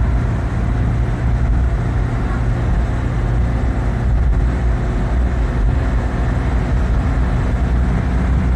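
Steady low rumble of road and engine noise inside a car cruising at speed on a highway.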